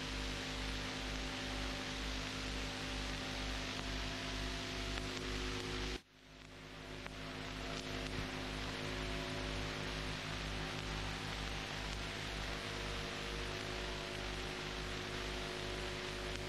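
Steady electrical hum with hiss, the background noise of an old film soundtrack. It cuts out abruptly about six seconds in and fades back up.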